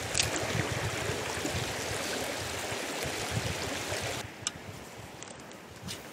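Shallow river riffle running steadily, water rushing over stones, with low rumbling in the first few seconds and a few sharp clicks. About four seconds in, the water sound drops quieter and duller.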